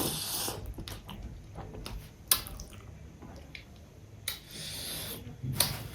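Close-up eating sounds of fish curry and rice: wet chewing and squishing with scattered sharp clicks, and two short hissy rushes, one at the start and one about four seconds in.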